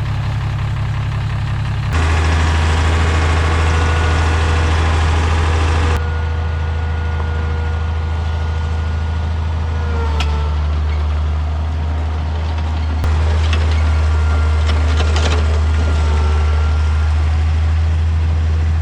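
Zero-turn lawn mower's engine running steadily with a strong low hum, under load while mowing. The level steps abruptly about 2, 6 and 13 seconds in.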